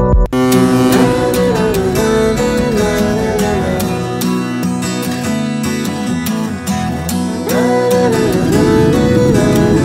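Background music with strummed guitar and a melody line, starting just after a brief break at the start.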